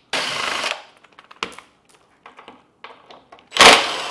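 Cordless power driver spinning out the mounting bolts under a motorcycle's tail section in two short bursts, one near the start and one near the end, with small metallic clicks of the bit and bolts in between.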